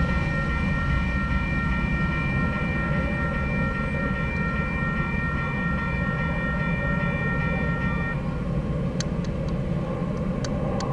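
Railroad grade-crossing bell ringing steadily over the low rumble of a freight train that has just cleared the crossing. The bell stops about eight seconds in as the gates rise, and a few faint clicks follow near the end.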